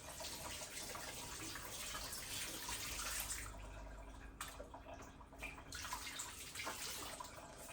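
Water running from a tap, which stops about three and a half seconds in, followed by a few light clicks.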